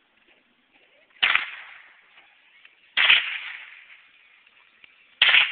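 Three rifle shots about two seconds apart, each a sharp crack followed by an echo that dies away over about a second; the last comes near the end.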